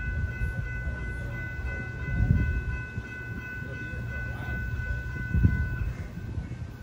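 Railroad grade-crossing warning bells ringing steadily, cutting out about six seconds in, over a low rumble that swells twice.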